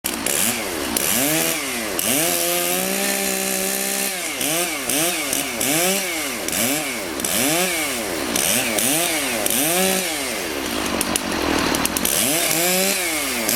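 Chainsaw revving up and down over and over in quick rises and falls, more than once a second, as it cuts. It is held at high revs for about two seconds near the start, and eases off briefly about ten seconds in before revving again.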